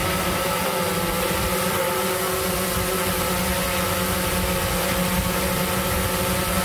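Autel EVO II 8K quadcopter hovering in place: the steady hum of its four propellers and motors, holding one unchanging pitch.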